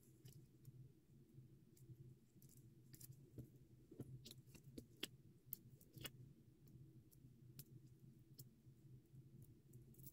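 Faint, irregular small clicks and ticks of paper cutouts being handled and adhesive foam squares being peeled from their backing sheet and pressed on, over a steady low hum.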